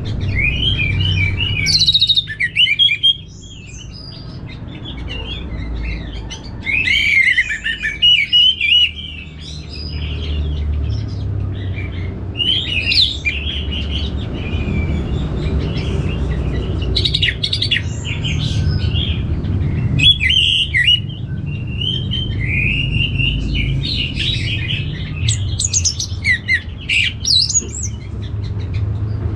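Orange-headed thrush singing: loud, fast, varied phrases of chirps and whistles in bursts of one to several seconds with short pauses between, over a steady low rumble.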